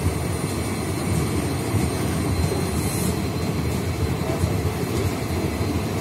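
Blue sleeper-class passenger coaches of an express train rolling past on the adjacent track: a steady rumble of steel wheels on the rails.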